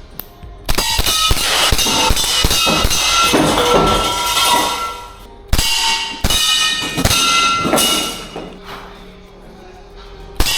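Background music with a drum beat, breaking off briefly a little past the middle and returning loudly at the end.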